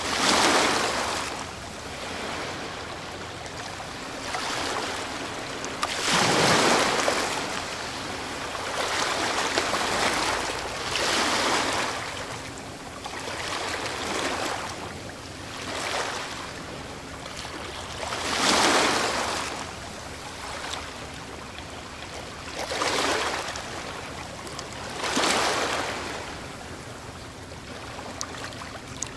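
Ocean waves breaking on the shore, each wave a rushing swell of surf that rises and fades, with four big breakers and smaller ones washing in between.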